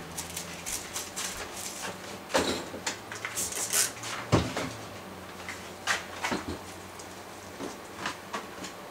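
Hands handling plastic perm rods and end papers while wrapping hair for a spiral perm: scattered light clicks and rustles, with a sharper knock about four and a half seconds in, over a low steady hum.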